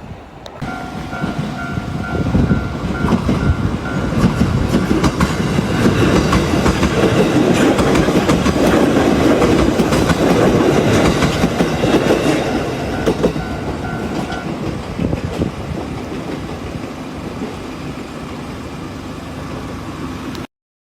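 A train passing over a level crossing, its wheels clattering over the rail joints; the sound builds, is loudest in the middle and fades away. The crossing's warning bell rings in a quick repeating ding, heard plainly at the start and again as the train noise falls away, and it stops well before the end.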